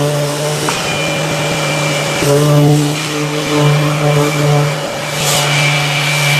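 Festool RTS 400 rectangular orbital sander running with its CT 15 dust extractor drawing through the hose: a steady motor hum with airy hiss. The hum dips briefly twice.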